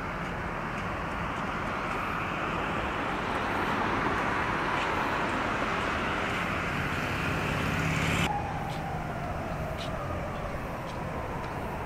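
Road traffic passing, a steady vehicle noise that swells and then drops off abruptly about eight seconds in. After that a quieter vehicle hum continues, with a tone that falls and then rises again.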